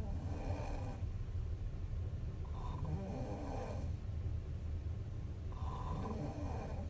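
A young woman snoring in her sleep, three snores about two and a half seconds apart, over a steady low hum.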